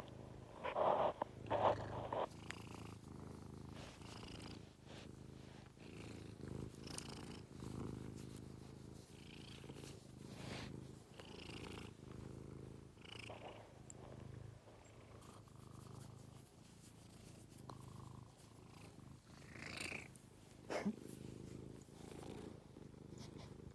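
Domestic tabby-and-white cat purring steadily while being stroked, the purr coming in even pulses about a second long. A few brief louder sounds near the start and again near the end.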